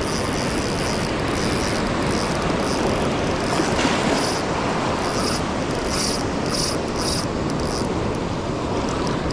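Surf washing on the beach with wind on the microphone, a steady rushing noise, with short high-pitched squeaks or chirps coming and going throughout.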